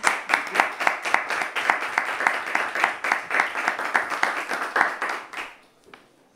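Small audience applauding, a dense patter of hand claps that dies away about five and a half seconds in, with a few last scattered claps.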